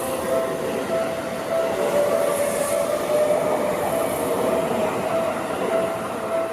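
Seibu Ikebukuro Line electric train running through a level crossing, with the steady noise of the passing cars. Over it the crossing's warning bell dings in a steady, repeating rhythm.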